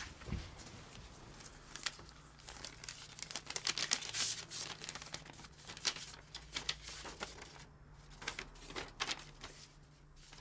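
A paper envelope being opened and a folded letter pulled out and unfolded: paper crinkling and rustling in quick crackles, busiest a few seconds in and again in the second half.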